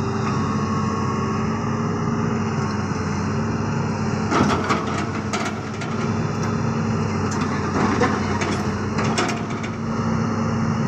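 Hitachi crawler excavator's diesel engine running steadily with the machine at rest. A few short knocks come through about four and eight seconds in.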